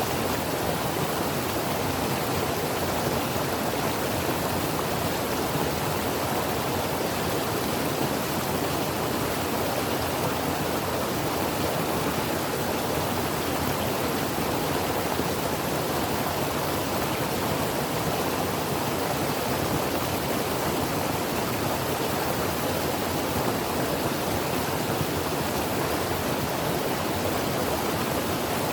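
Creek water flowing over rocks: a steady, even rushing without changes.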